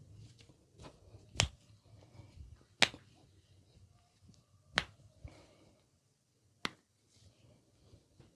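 Four sharp snaps, one to two seconds apart, with fainter clicks and soft rubbing between them: hand sounds of a head massage.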